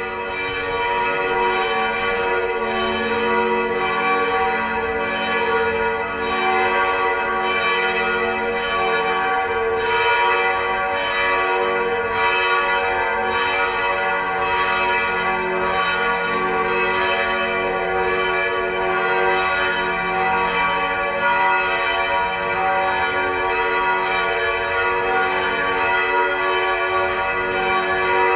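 Church bells pealing: several bells swinging and striking in a steady, continuous rhythm, their tones ringing on and overlapping.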